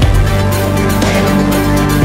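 Background music with a heavy bass, held notes and a steady beat.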